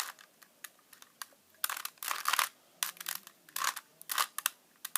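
Rubik's Cube being turned by hand: irregular plastic clicks and clacks of its layers rotating, with a few longer scraping turns about two seconds in and again near the end.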